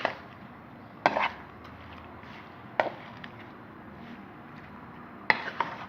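A utensil knocking and clattering in a pan while chicken pieces, tomatoes and spices are stirred together. There are sharp knocks about a second in, near three seconds and twice near the end.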